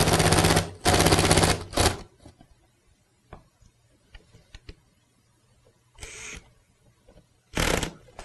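Cordless impact driver hammering in rapid rattling bursts as it drives fasteners on the seat frame, set turned down so as not to break them: three bursts in the first two seconds, a shorter one about six seconds in, and another near the end.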